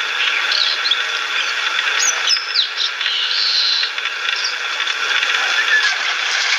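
Outdoor ambience: a steady high hiss with a few short high chirps and falling squeaks over it, about half a second in and again around two seconds in.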